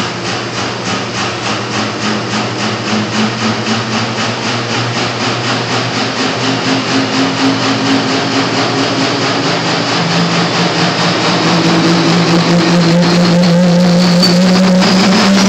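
Dodge pickup's Cummins inline-six turbo-diesel running hooked to a pulling sled, its note stepping up and getting louder about ten seconds in as the revs build. It is over-fuelled for its boost and is pouring black smoke.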